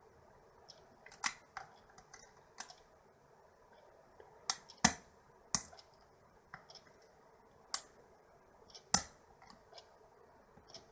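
Single-pin picking of a pin-tumbler rim cylinder held under inside tension: a lock pick working the pin stacks, with irregular sharp metallic clicks, about ten in all, as the pins are lifted and set.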